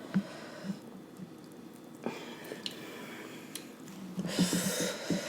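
Close-up chewing and wet squishing of a sauce-dipped fried chicken sandwich, with small clicks and a louder crunchy, noisy stretch about four seconds in.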